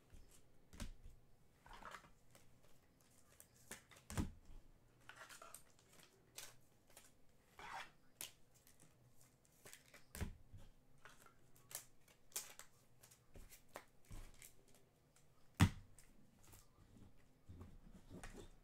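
Faint scattered clicks and rustles of trading cards and hard plastic card holders being handled, with one sharper click about fifteen seconds in.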